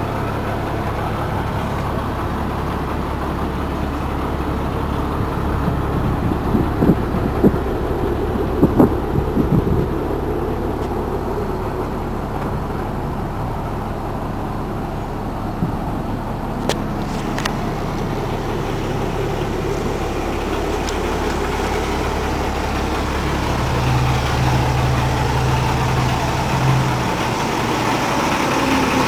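International DT466E inline-six turbo diesel in a school bus idling steadily, with a few light knocks partway through.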